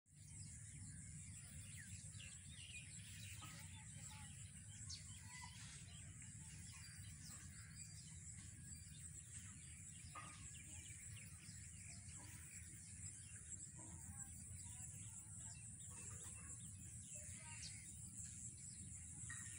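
Faint rural field ambience: scattered short bird chirps over a steady high-pitched hiss and a low rumble.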